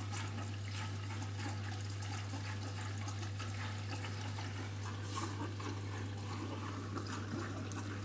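Candy front-loading washing machine taking in water on its last rinse: a steady rush of running water with a constant low hum underneath.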